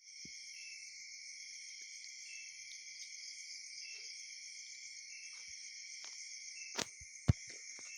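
Steady high-pitched chorus of insects, with two sharp clicks near the end, the second much louder.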